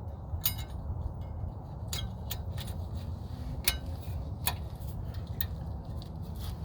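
Light metallic clicks and clinks, about five of them spread over several seconds, as new metal brake pad clips are pressed into place on the rear caliper bracket. A steady low rumble runs underneath.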